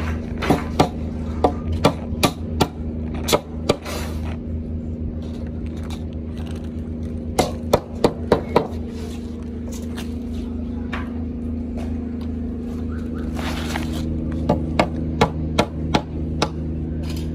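Claw hammer striking a timber door frame, nailing it, in three runs of sharp blows, over a steady machine hum.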